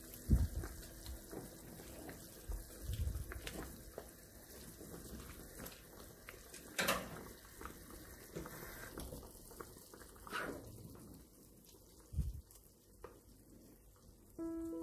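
Pork rib and swede soup simmering in a pan while it is stirred, liquid sloshing and splashing, with a few separate knocks and splashes scattered through.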